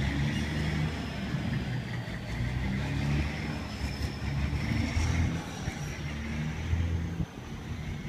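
A motor vehicle engine running nearby: a low, uneven rumble.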